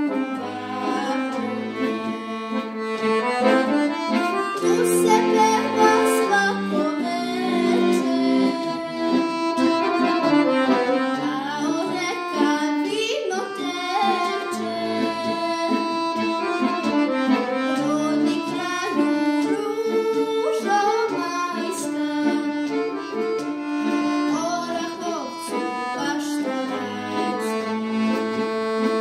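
A girl singing a Serbian folk song in Serbian with instrumental accompaniment.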